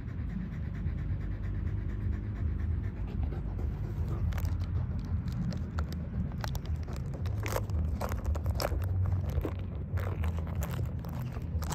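Cane Corso panting, then from about four seconds in, irregular sharp crackling and crunching as it chews a plastic bottle.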